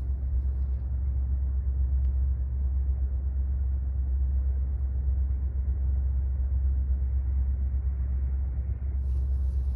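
A steady low rumble with a soft hiss above it and no distinct events.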